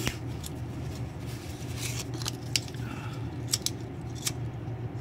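Wood kindling crackling as it burns in a rocket mass heater's feed tube, with sharp snaps every half-second to second. A steady low rumble runs underneath.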